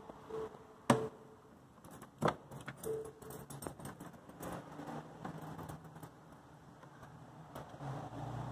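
Plastic mesh radiator grille being bent and pushed into a car's front bumper opening: sharp plastic clicks and knocks, the loudest about a second in, with metal bracelets jingling. A few short beeps sound in the background during the first three seconds.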